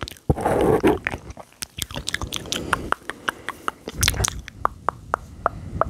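Close-miked ASMR mouth sounds: a fast irregular run of wet clicks and smacks from the tongue and lips, with short rushes of noise about half a second in and again about four seconds in.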